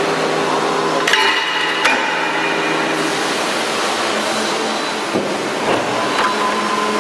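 Injection moulding machine running a crate mould with a steady hum. Two sharp metallic clanks come a little after a second in and again just before two seconds, as the mould closes. Near the end a high whine sets in and slowly falls in pitch.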